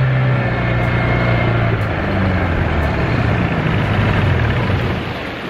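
Outboard motor on a small river boat running under way, then throttled back: its steady note drops in pitch from about two seconds in and fades near the end as the boat slows.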